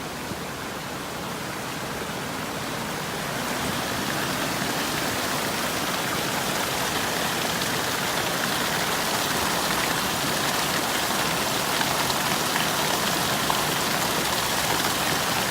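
Steady rushing of a stream's running water, growing louder about three seconds in.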